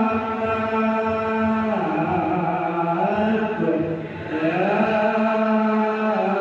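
Islamic devotional chanting: voices holding long notes that slide slowly in pitch, with a short dip about four seconds in.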